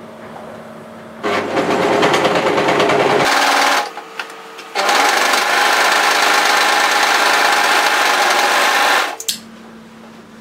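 Overlocker (serger) stitching a side seam to neaten its raw edge, running in two stretches: a short run starting about a second in, a brief stop, then a longer steady run that stops near the end.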